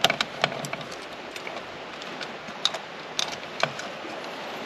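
Small sharp clicks and taps of metal parts and wire connectors being handled as the washer pump is fitted back onto a C3 Corvette wiper motor housing: a quick cluster at the start, then a few single clicks between about two and a half and three and a half seconds in.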